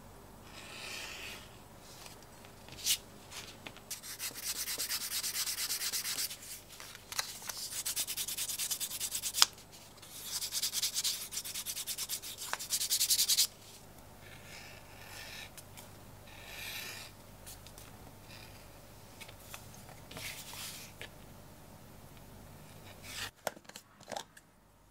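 Fast back-and-forth rubbing along the edge of a narrow strip of English bridle leather, worked by hand in three runs of a few seconds each, then softer, shorter rubs. A few sharp clicks near the end.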